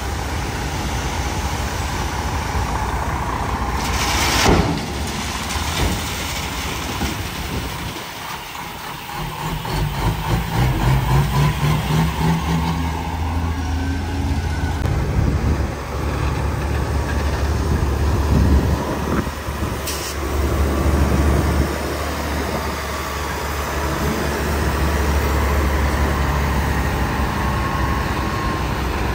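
Heavy diesel dump truck engines running. There is a short burst of air hiss about four seconds in and another near the twenty-second mark. An engine's pitch rises from about nine to thirteen seconds as a truck accelerates away, and a steady low diesel rumble follows.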